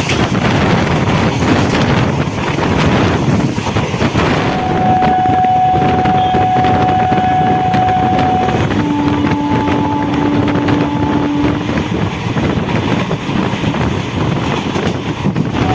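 Passenger train running, heard from an open window: a rumbling run with wind buffeting the microphone. The rush of wind eases about four seconds in as the train slows into a station, and steady squealing tones from the brakes then come and go, shifting pitch once.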